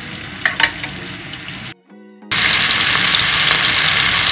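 Chicken breast fillets frying in a lot of very hot vegetable oil: a steady sizzle, with a few clicks about half a second in. The sizzle breaks off near two seconds and comes back much louder.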